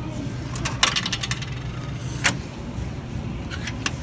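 Coins clinking in a vending machine. There is a quick run of metallic clicks about a second in, a single sharp clink just past two seconds, and a couple more near the end.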